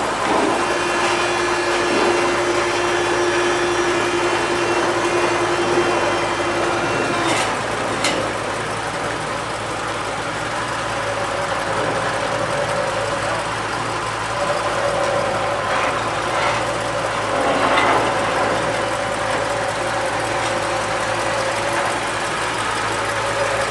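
A vehicle engine idling steadily, with a thin steady whine over it for the first seven seconds or so and two sharp clicks about seven and eight seconds in.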